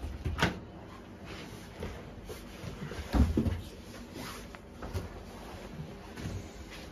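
Scattered knocks and bumps of people shifting about and handling things in a small hard-walled room, loudest about three seconds in.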